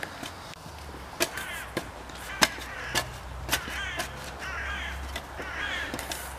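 Birds calling over and over in harsh, wavering calls, about six of them. Sharp knocks, the loudest sounds, fall between the calls, roughly one every half second or so in the first half.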